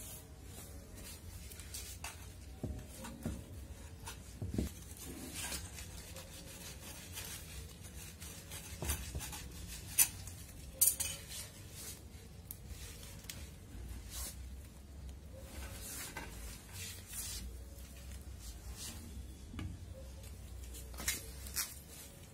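Scrapes, knocks and clinks of a metal hand trowel (khurpa) working against a cement flower pot and its soil, loosening a plant that the gardener suspects is root-bound. Two sharp clinks stand out about ten and eleven seconds in.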